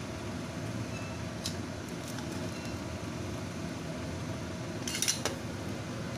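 Metal tongs clinking against a wok and dishes as cooked chicken pieces are lifted out. There is a light clink about a second and a half in and a quick cluster of sharper clinks about five seconds in, over a steady low background noise.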